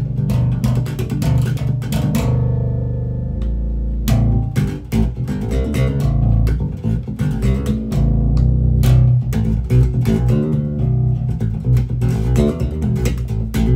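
Fodera seven-string electric bass played fingerstyle: a busy run of plucked notes with deep low notes ringing under them, heard through a phone's microphone.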